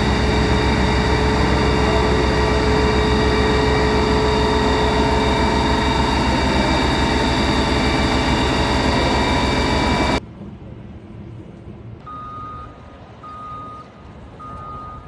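A heavy vehicle's engine running loud and close, cut off abruptly about ten seconds in. It is followed by a quieter stretch in which a reversing alarm beeps three times.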